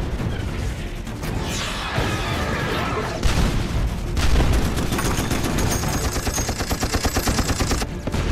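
Film battle sound mix of a warship fight: heavy gunfire and booming impacts, with a fast burst of automatic fire about five seconds in that lasts nearly three seconds, over the film's music score.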